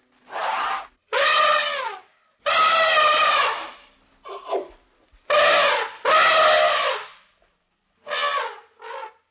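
An animal calling over and over: about seven loud, wavering cries in quick succession, each lasting half a second to a second and a half, the last two short and quieter.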